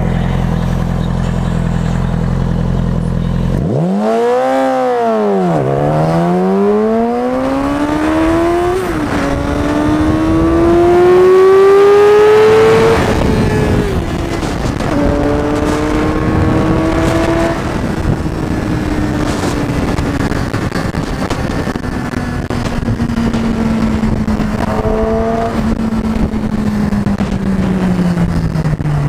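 2007 Yamaha R6's 600cc inline-four with a Leo Vince aftermarket exhaust under full-throttle acceleration. The engine note climbs steeply and is cut by several quick upshifts, with the peak just before the third shift. It then holds a high, steady cruise at over 100 mph, with a brief throttle blip near the end before it eases off.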